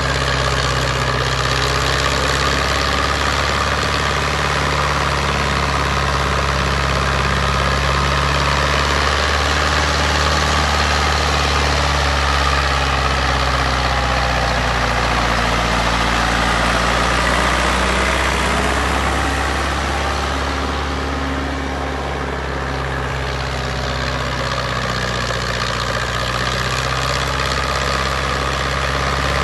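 HMT 5911 tractor's diesel engine running steadily while pulling an implement through soil, its diesel injection pump freshly serviced. It turns slightly quieter for a few seconds about three-quarters of the way through.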